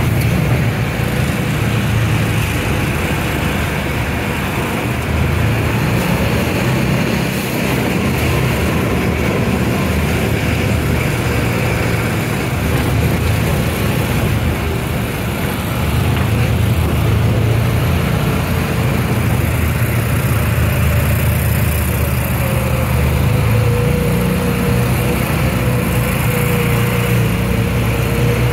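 Side-by-side off-road vehicle's engine running steadily while driving, with road and wind noise. A faint steady whine joins near the end.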